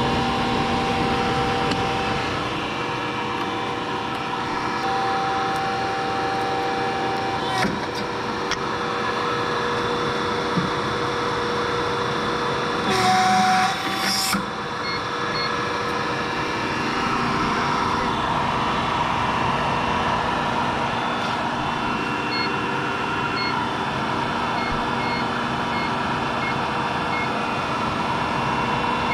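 Steady machine hum with several held tones, broken by a loud noisy burst of about a second and a half about 13 seconds in. In the last quarter a hydraulic hose crimper's touchscreen gives a run of short beeps as its keys are pressed.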